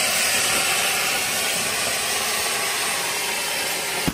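Ground fountain firework (anar) hissing steadily as it sprays a column of sparks.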